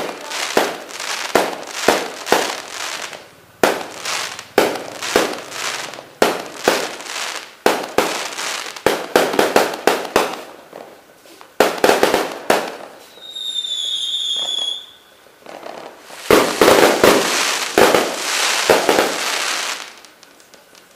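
Aerial fireworks launching and bursting: a rapid string of sharp bangs, about two a second, for the first half. About two thirds through comes a single high whistle lasting under two seconds, then a dense volley of bangs and crackle that stops shortly before the end.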